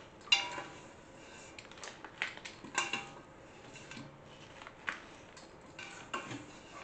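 A hand scooping thick muffin batter out of a stainless steel bowl, with irregular light knocks and scrapes of fingers and batter against the metal.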